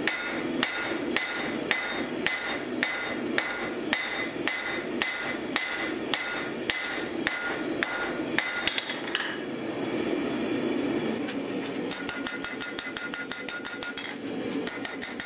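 Hand hammer striking red-hot steel on an anvil in a steady rhythm of about two blows a second, each with a short metallic ring, forging an axe head. The blows quicken briefly just before the middle, then stop for about two seconds. A run of fast, much lighter taps follows.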